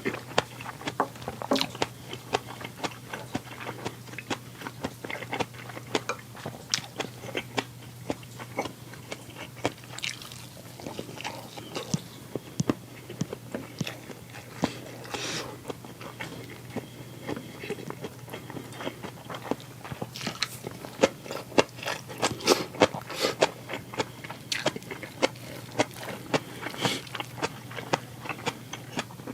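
A person chewing and biting food close to the microphone, with many short crunches and clicks, over a low steady hum.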